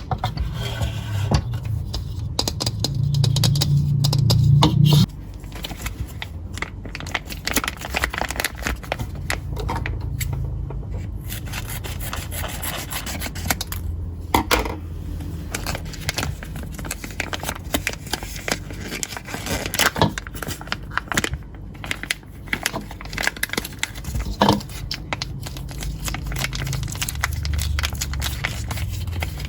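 Close-up scraping and rubbing of slime-making ingredients being stirred and handled, with many small crackles and clicks. A low hum under the first few seconds cuts off suddenly about five seconds in.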